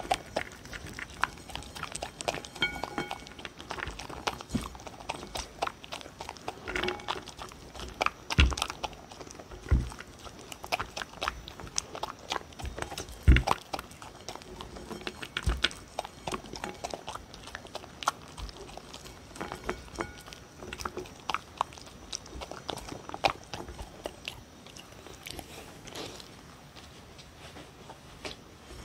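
A dog eating kibble and food pieces from a ceramic plate close to the microphone: irregular crunching, chewing and licking clicks, a few much louder than the rest. The sounds thin out toward the end as the plate empties.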